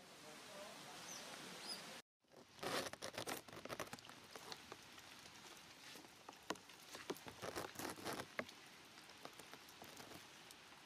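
A steady hiss that cuts off abruptly about two seconds in. Then an irregular patter of sharp little ticks and clicks, dense for several seconds and thinning out after that.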